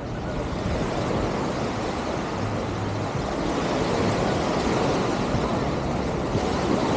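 Beach ambience: a steady wash of surf with wind on the microphone, swelling slightly over the first few seconds.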